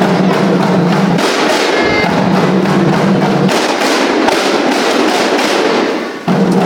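Kompang, Malay hand-beaten frame drums, played by a group in a fast, dense interlocking rhythm of slaps. A steady low tone comes and goes underneath.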